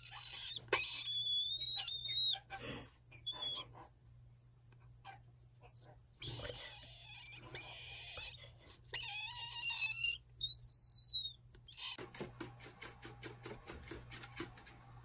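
Medium sulphur-crested cockatoo chick calling as it mouths a person's fingers: rasping begging calls and squeaky whistles that rise and fall. About twelve seconds in, a fast even run of short sounds follows, about five or six a second.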